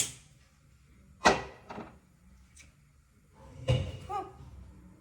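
Sharp knocks and bangs of things being handled in a kitchen, like a cupboard door or pot being set down: a loud hit at the start, another about a second in, a heavier one near the end, with smaller knocks between.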